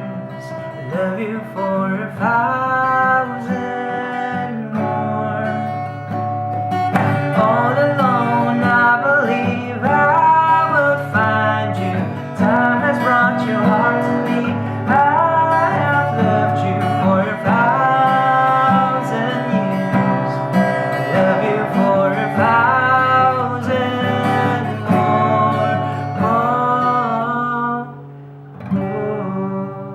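Solo singing over a strummed acoustic guitar. The voice stops about two seconds before the end, and a last guitar chord is struck and left to ring.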